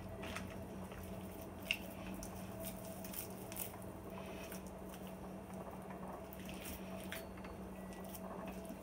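Faint wet squishing and sticky clicks of hands pressing breadcrumb stuffing into a boned raw chicken, with one sharper click near the two-second mark, over a steady low hum.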